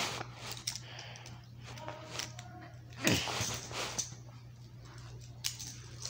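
Faint movement noise in a small room: scattered light knocks and rustles, with one louder rustle about three seconds in, over a steady low hum.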